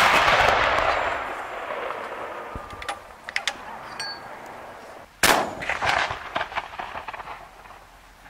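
Homemade breech-loading salute cannons firing blank salute shots. The boom of one shot rolls away at the start as an echo over about two seconds, a second shot goes off about five seconds in, and scattered sharp cracks follow.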